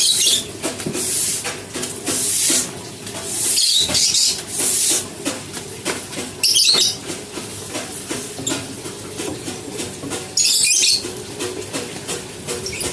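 A series of short, loud hissing bursts, about six, each roughly half a second, over a steady wavering hum.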